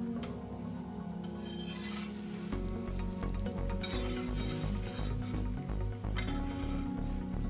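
Background electronic music with a steady beat, with the sizzle of a chapati frying on a hot griddle and the scrape and clink of a metal spatula as it is pressed and flipped.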